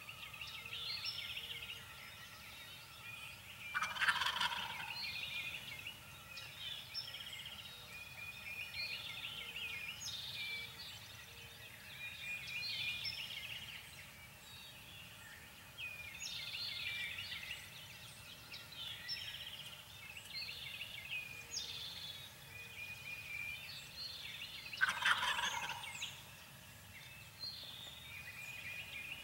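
Wild turkey gobbling twice, loud, about four seconds in and again near the end. Songbirds keep up repeated high trilling songs throughout.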